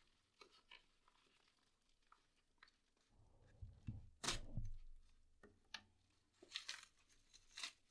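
A shipping package being opened by hand: scattered soft crinkles and clicks, with a louder tearing rip about four seconds in and more crinkling near the end.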